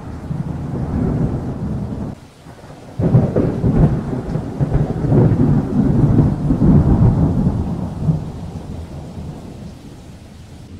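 Thunder: a rumble dies down, then about three seconds in a sudden crack sets off a long rolling rumble that fades over the last few seconds, with rain hissing underneath.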